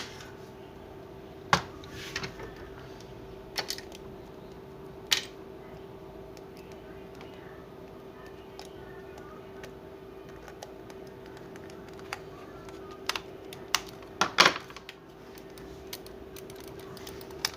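Scattered sharp plastic clicks and taps from a computer mouse being screwed back together and handled, coming a second or more apart with a louder cluster near the end, over a steady faint hum.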